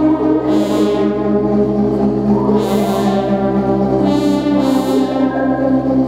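Live electronic music: layered droning synthesizer tones held steady, with bright, buzzy, horn-like swells rising over them about four times.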